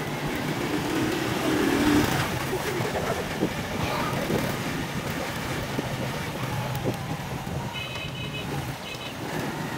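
Honda motorcycle engine running steadily while riding along a dirt road, heard from the rider's seat with road and wind noise.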